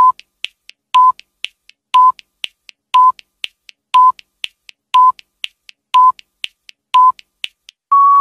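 Countdown timer sound effect: a short electronic beep once a second, with fainter ticks between the beeps. Near the end it gives a longer beep as the timer reaches zero.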